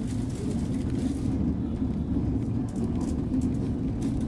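Passenger train running at speed, heard from inside the carriage: a steady low rumble of the wheels on the rails.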